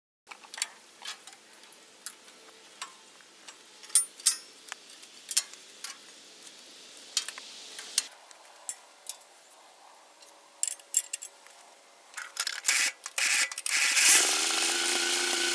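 Scattered metal clicks, knocks and scraping of hand tools working on a steel hay rake frame. Near the end a louder, steady mechanical noise with a slightly rising pitch takes over.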